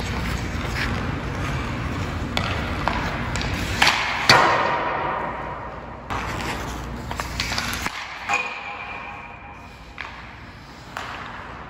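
Hockey pucks being shot with an STX Stallion HPR 2 stick over the scrape of skates on ice: a string of sharp cracks and knocks, two of them ringing on as pings, the loudest about four seconds in.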